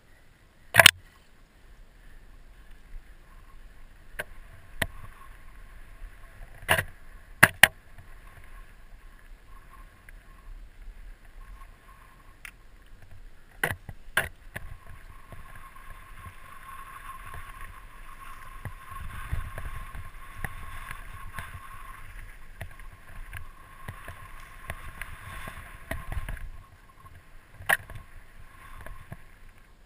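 Mountain bike descending a dry dirt singletrack, heard from a body-mounted action camera: tyre and trail rumble with wind noise, growing stronger in the second half, broken by sharp clattering knocks from the bike and camera mount over bumps, the biggest about a second in, around seven seconds and around fourteen seconds.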